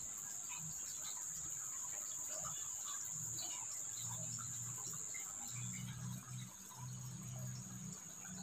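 Insects droning steadily with one high, even tone, over scattered faint ticks; a low hum comes and goes in the second half.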